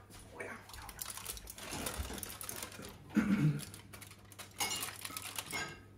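Aluminium foil crinkling and rustling as hands pull it open and fold it back on a metal baking tray, in two spells. A short low sound about three seconds in.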